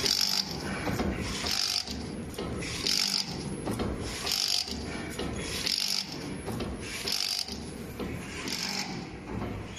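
Automatic hexagonal chicken wire mesh weaving machine running, its mechanism clattering steadily, with a louder clash repeating about every second and a half.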